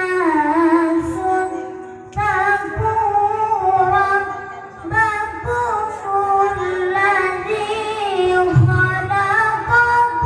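A child's voice reciting the Qur'an in melodic qiroah style, in long, ornamented phrases that slide up and down in pitch, amplified through a PA sound system.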